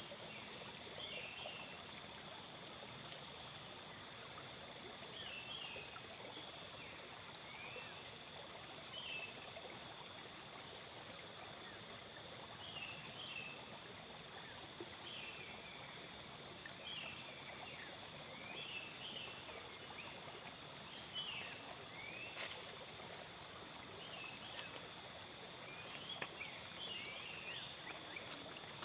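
Insects calling: a steady, very high buzz with a second insect's rapid pulsing chirps coming in repeated trains. Short, quick bird chirps are scattered among them.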